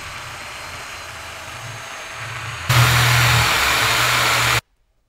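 Electric drill motor running steadily, spinning a rusty threaded part in its chuck. About two and a half seconds in it turns louder with the hiss of a sanding drum grinding rust off the spinning part, then cuts off suddenly near the end.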